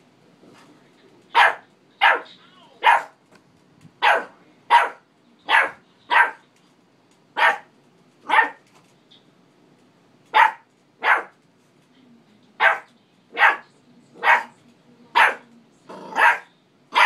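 Pit bull barking: single loud barks, one every second or less, starting about a second and a half in, with a short pause midway before the barking resumes.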